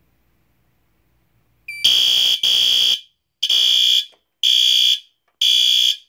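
System Sensor SpectrAlert Advance fire alarm horn sounding a drill in loud, high-pitched blasts about one a second, starting about two seconds in. The panel has lost AC power, so the horn runs on battery backup.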